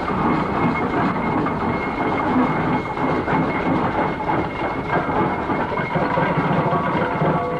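Steam roller's engine running as it hauls its trailers along, a steady mechanical chuffing with a hiss of steam.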